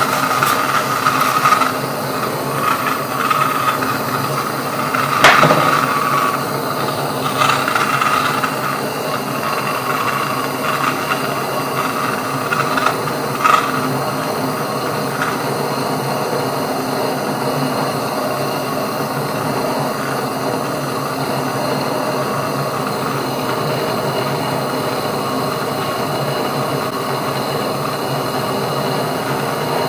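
Jeweller's gas torch flame hissing steadily as it heats a silver spoon on a soldering block for soldering. Two sharp clicks come about five seconds in and again near the middle.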